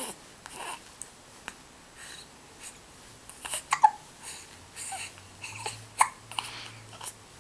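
Several sharp hiccups, the loudest a pair a little under four seconds in and another about six seconds in, with breathing sounds between them.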